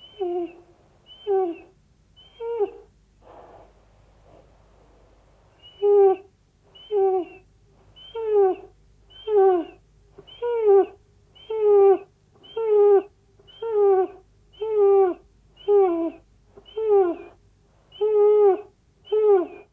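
Minilla's cry, the film sound effect for Godzilla's son: a short call that drops in pitch, repeated about once a second, with a pause of a couple of seconds about three seconds in.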